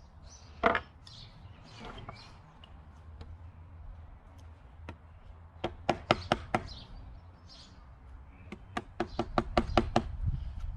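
Mallet striking a chisel to chop a hinge recess into wood: a single knock about a second in, a quick run of five around six seconds, then about ten faster taps near the end.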